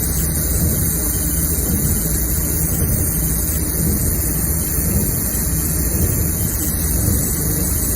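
Steady, even hum and hiss of running machinery, with no breaks or changes.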